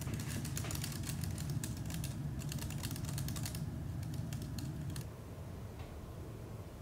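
Rapid typing on a computer keyboard, quick runs of key clicks that thin out and stop about five seconds in, over a low steady hum.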